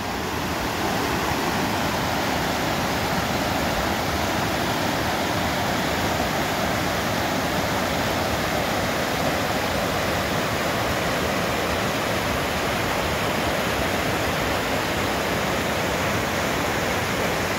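River water rushing over rocks, a steady full rush of white water with no change throughout.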